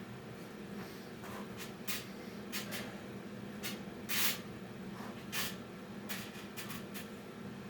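Several short hissing bursts at irregular intervals, the loudest about four seconds in, over a steady low hum.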